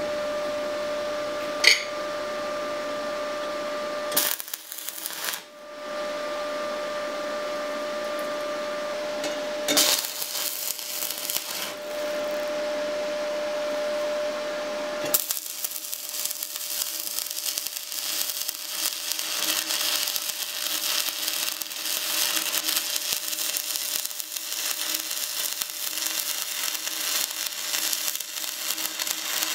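A steady electrical whine, then from about halfway a continuous crackle and sizzle of a 6013 stick electrode burning in an MMA arc, run from an RTEC MIG 180 inverter welder. A short burst of the same crackle about ten seconds in is a tack weld.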